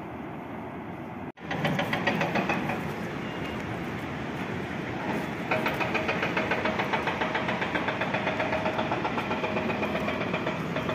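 An engine running with a fast, even beat, after an abrupt break about a second in. A steady hum joins about halfway.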